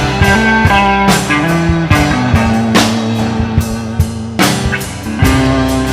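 Live band playing an instrumental passage between sung lines: electric and acoustic guitars with bass and drum kit, steady beat.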